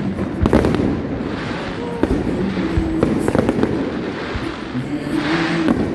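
Fireworks display: many sharp bangs and crackles going off one after another, the aerial shells bursting overhead.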